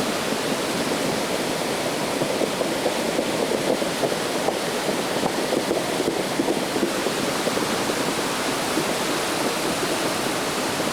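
Muddy flash-flood water rushing steadily, a continuous loud churning wash.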